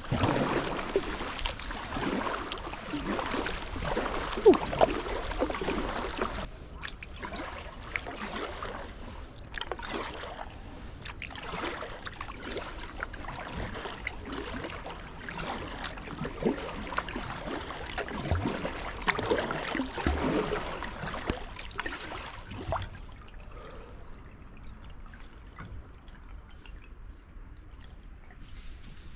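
Kayak paddling in shallow river water: repeated paddle splashes and water trickling off the blades, dying down to a quieter trickle near the end.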